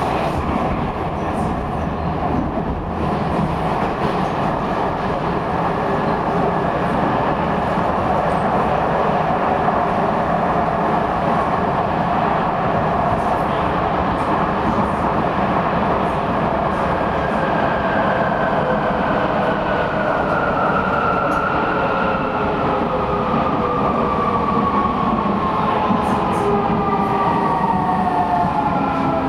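Type V Vienna U-Bahn train running through a tunnel, heard from inside the car as a steady rumble. From a little past halfway, a whine of several tones slides steadily down in pitch as the train slows for the station.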